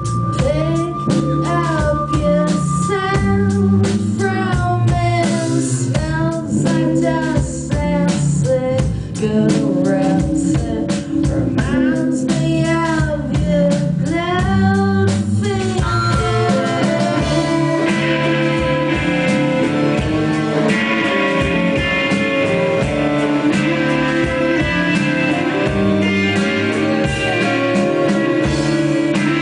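A band playing a song live: singing over guitar. The vocal drops out about halfway, and the guitars play on alone.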